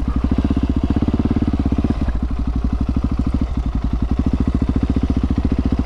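Husqvarna 701 Supermoto's single-cylinder four-stroke engine running at low revs as the bike is ridden slowly over a dirt track, a steady, even pulsing beat.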